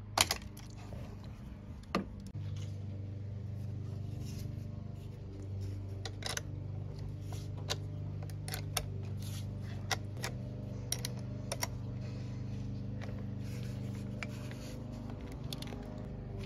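Metal hand tools clicking, tapping and scraping on a car battery's terminal clamp as a flat-head screwdriver and an 8mm wrench work it loose, in scattered sharp clicks, the loudest just after the start and about two seconds in. A steady low hum runs underneath.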